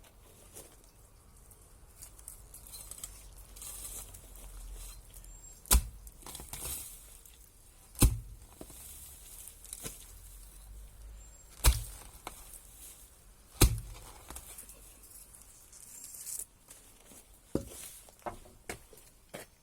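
Four hard, sharp strikes spaced a few seconds apart, with scraping, rustling and small ticks between them.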